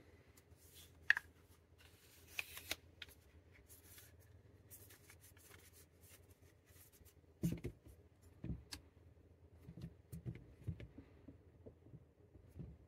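Faint handling noise from an Ulanzi MT-16 extendable tripod stick being worked by hand. It starts with scattered sharp clicks and rubs, the sharpest about a second in, then turns to a run of soft, dull knocks in the second half.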